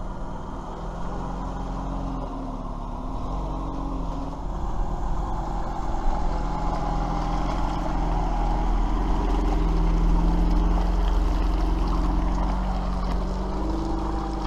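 An engine running under load, its pitch drifting up and down, with a steady low rumble. It grows louder toward the middle and eases off near the end.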